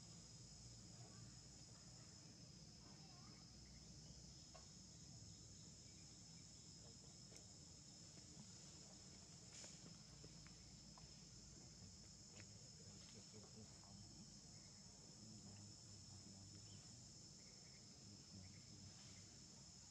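Near silence with a faint, steady, high-pitched insect chirring, crickets or similar, and a few soft clicks.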